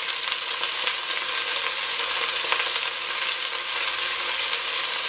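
Diced chicken breast searing in hot oil, a steady sizzle with a few faint ticks; the chicken is still giving off its water into the pan.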